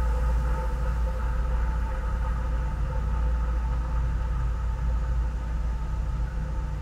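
Steady low machinery hum of distillery plant, a deep rumble with a few faint steady tones above it, easing off slightly near the end.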